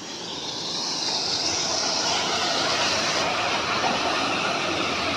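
Steady rushing of wastewater flowing into a treatment-plant tank as the decant pump forwards it to the effluent tank, fading in over the first second and then holding even.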